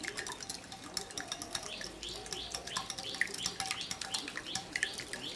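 Wire whisk beating eggs in a glass bowl: a quick, continuous run of clicks and scrapes as the wires strike and rub the glass, several strokes a second.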